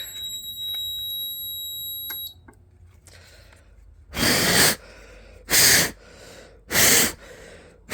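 Aerosol canned-smoke detector tester sprayed in four short hissing bursts about 1.3 seconds apart. A steady high-pitched electronic tone stops about two seconds in.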